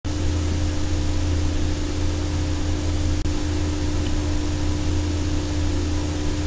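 Steady machine hum with a constant mid-pitched tone over an even hiss, the running room tone of a railway workshop floor, briefly dipping about three seconds in.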